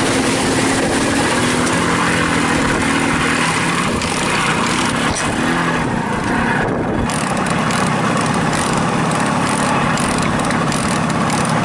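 Jawa Babetta mopeds' small two-stroke engines running under a steady rush of noise, with a brief change in the sound about six to seven seconds in.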